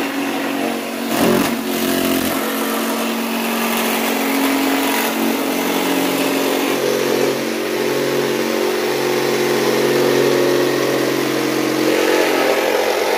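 Corded jigsaw running loudly and steadily as its blade cuts through a wood panel.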